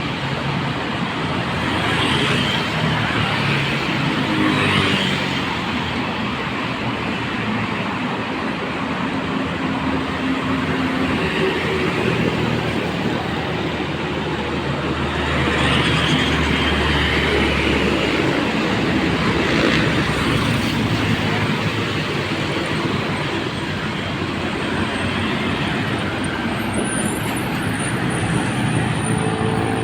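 Steady road traffic: vehicles passing one after another, engines swelling and fading as they go by, with a brief high squeal near the end.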